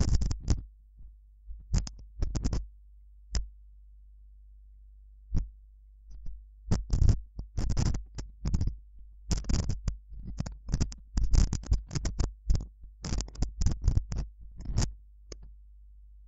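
Computer keyboard keys clicking as numbers and commas are typed, in quick irregular runs with pauses between.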